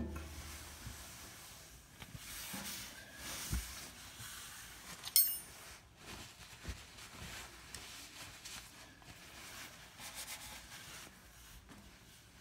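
Scattered light knocks and handling noises from work on a belt-drive blower, with one sharp, ringing metallic clink about five seconds in.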